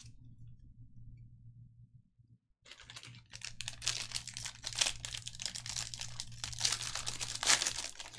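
Rapid clatter of typing on a computer keyboard, starting about two and a half seconds in, over a low steady hum.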